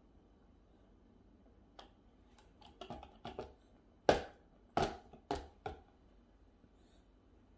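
A toddler's plastic straw sippy cup knocked and tapped as he handles it: a few light taps, then four sharper knocks in the middle, the first of them the loudest.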